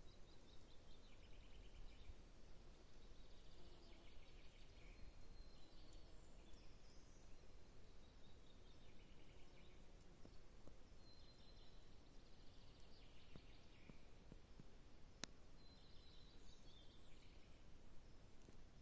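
Faint songbirds singing short trilled and whistled phrases every few seconds, over a low steady rumble of wind or handling noise. One sharp click about fifteen seconds in.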